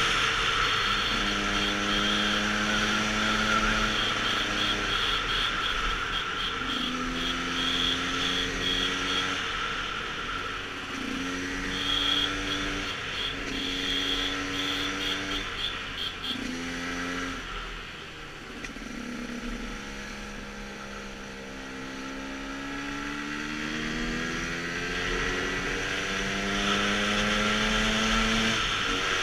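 KTM 125 enduro motorcycle's two-stroke engine running while riding, its pitch holding, stepping and rising and falling as the rider works the throttle and gears. About two-thirds of the way through it eases off, then builds up slowly again.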